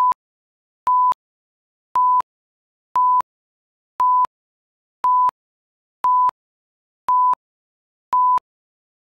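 Countdown timer beeps: a short electronic beep at one steady pitch, about a quarter second long, once a second with silence between, ticking off the seconds of a ten-second countdown.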